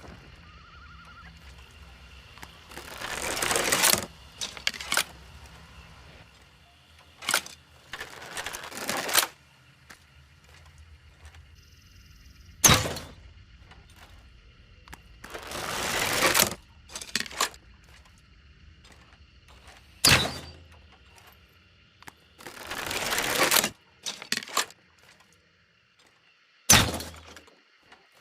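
Crossbow sounds repeated several times: each time a drawn-out scraping rasp, a few small clicks, then one sharp snap.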